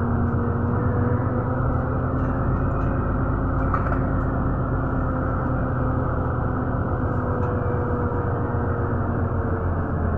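Running noise heard inside a moving public-transport vehicle: a steady low rumble with a steady motor hum.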